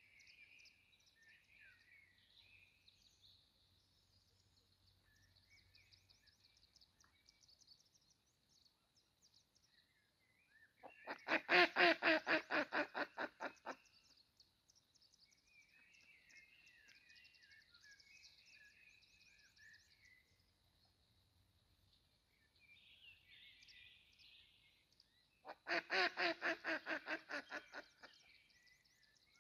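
Birds calling outdoors: a bird twice gives a fast run of harsh, quacking notes, several a second and each run lasting about three seconds. Between the runs, faint songbird chirps and twitters continue over a thin steady high tone.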